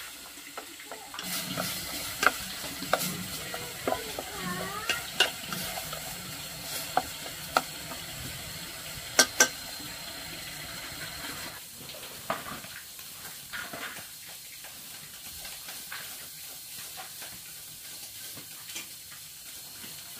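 Cooking sounds: a utensil clinking and knocking against a pot over a steady sizzling hiss. The hiss drops away about 11 seconds in, leaving only occasional clicks.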